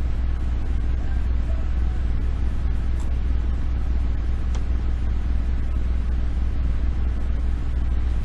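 Steady low hum and rumble of background noise, with a couple of faint clicks about three and four and a half seconds in.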